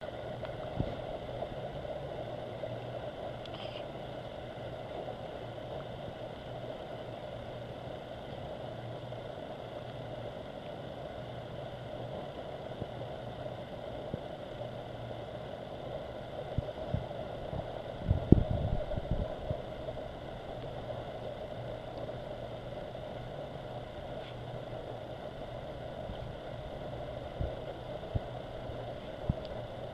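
An engine idling steadily, with scattered low thumps, most of them clustered a little past halfway.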